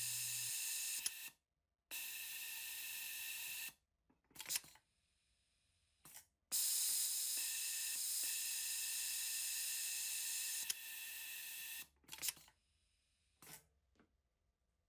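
Kansai Special NR9803GALK-UTA sewing machine with its ABH-1A pneumatic device working through its cycle: three spells of steady hissing with a whine in it, each cut off sharply, and a few short clicks in between.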